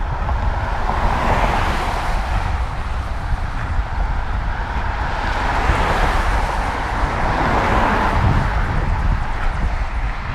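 Road traffic passing close by, the tyre and engine noise swelling and fading twice, over a constant low rumble of wind on the microphone.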